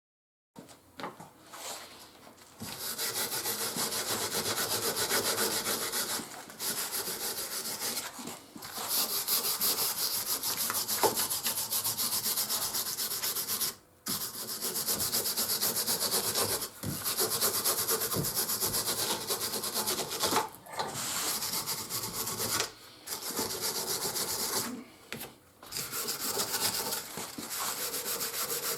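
Scrubbing and rubbing on the Record No 3 vice's metal parts to clean off old grime: a steady scratchy hiss in stretches of a few seconds, with short breaks between them.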